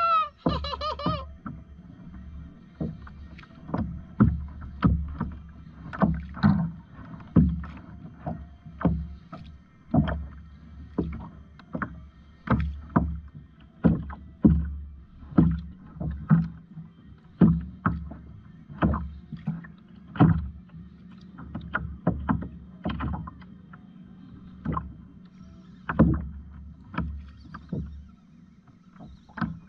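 Kayak paddle strokes, a regular splash of the blade about once a second, with a steady low hum underneath. A short wavering high-pitched call sounds right at the start.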